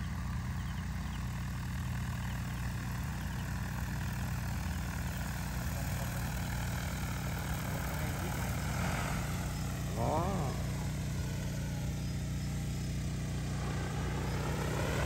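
DJI T20P agricultural spraying drone flying low and spraying, its rotors giving a steady droning hum whose higher tones slowly rise and fall as it moves and turns.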